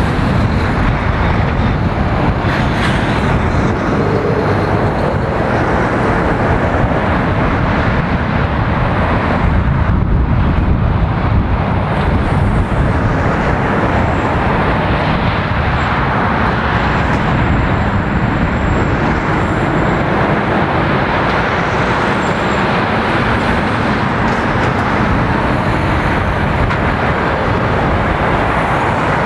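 Heavy lorries and cars passing close by on a busy road: diesel engines and tyre noise run together into steady, loud traffic noise.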